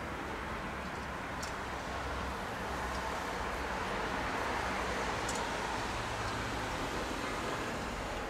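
Traffic noise: a passing vehicle's steady rush that swells to a peak about halfway through and then fades, with a few faint clicks.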